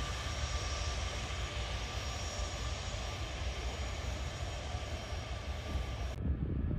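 Jet engines of a Boeing C-17 Globemaster III transport running: a steady low rumble with a hiss over it. About six seconds in the hiss cuts off suddenly, leaving only a low rumble.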